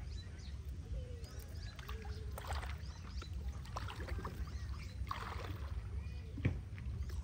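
Water sloshing and splashing in short bursts, as from handling a fishing net in shallow water, over a steady low rumble, with a sharp knock about six and a half seconds in.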